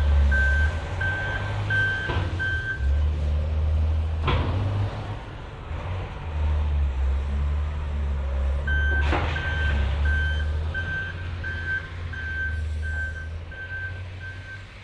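Heavy machinery backing up: a reversing alarm beeping about two and a half times a second over a low engine rumble, with a couple of sharp clanks. The beeping stops a few seconds in and starts again past the middle.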